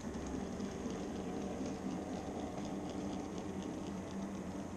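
N-scale model freight train running past on the track: a steady low hum with faint, rapid light clicking from the wheels over the rails.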